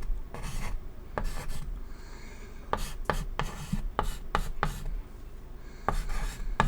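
Chalk writing on a chalkboard: short scratchy strokes broken by sharp taps as letters are formed.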